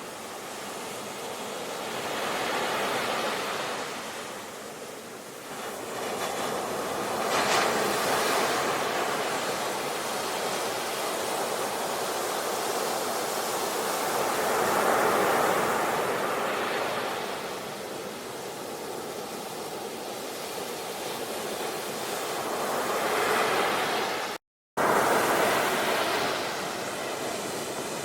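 Sea waves breaking and washing on a shore, a steady rush that swells and ebbs every few seconds. The sound cuts out for a split second about three-quarters through, then comes back at full strength.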